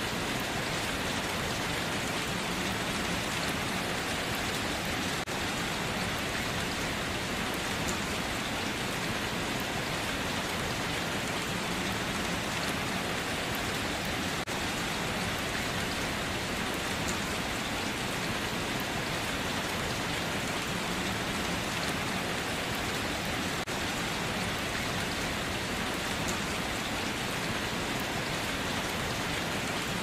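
Steady rain falling, an even hiss that holds without letup.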